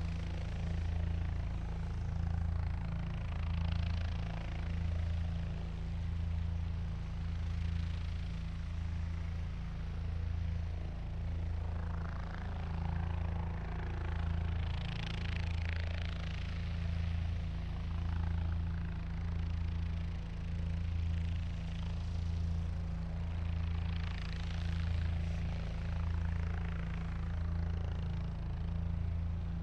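Helicopter rotor and turbine sound: a steady low throb that beats regularly, with a higher rushing hiss that swells and fades several times.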